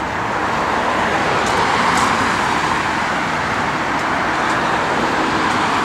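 Road traffic noise from cars on a multi-lane street, a steady rush that swells slightly about two seconds in.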